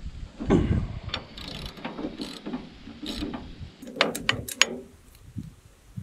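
Ratchet wrench clicking in short, irregular runs as it backs off the nut that clamps the crank handle and friction brake on a Wood-Mizer LX25 sawmill's head lift. The densest run of clicks comes about four seconds in, and it goes quieter near the end.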